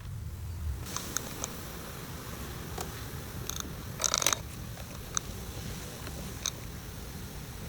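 Hand-tool and metal-part handling noises: scattered light clicks and a short burst of rattling clicks about four seconds in, over a low steady rumble.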